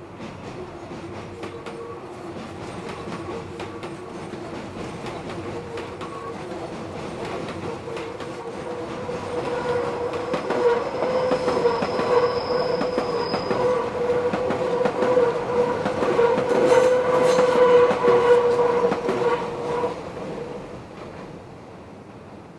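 Meitetsu electric train rounding a tight curve, its wheel flanges squealing in steady tones over the clatter of its wheels on the rail. The sound builds, is loudest in the middle, and dies away about twenty seconds in.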